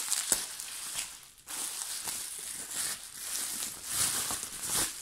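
Plastic bubble wrap crinkling and rustling as it is handled and pulled open by hand, with a sharp crackle just after the start and a brief lull about a second and a half in.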